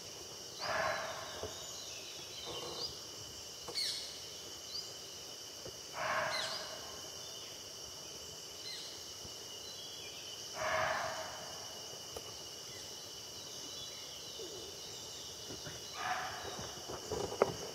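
Indian muntjac (barking deer) giving four short alarm barks about five seconds apart, the sign that it has sensed a predator, here a tiger. A steady insect drone runs underneath, and a sharp click sounds near the end.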